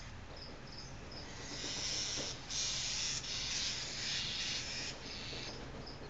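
A red-tailed boa hissing in several long breaths, from about a second and a half in until shortly before the end, with brief breaks between them. Behind it an even, high chirp repeats two or three times a second.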